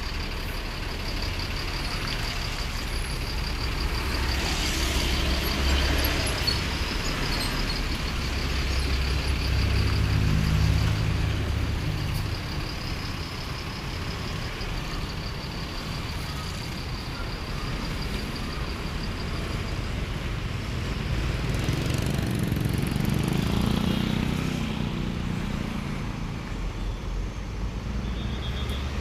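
Diesel tour buses running past on the road, the engine rumble swelling twice as vehicles go by, in steady traffic noise; no horn is sounded.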